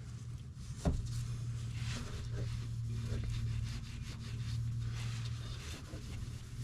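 A single sharp knock about a second in, then light rubbing and handling noises over a steady low hum: tools being handled after the oil drain plug has been tightened.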